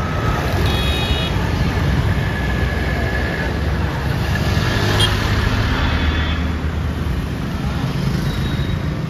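Busy road traffic: motorbikes and cars running past, with a bus engine passing close in the middle. A short horn toot sounds about a second in.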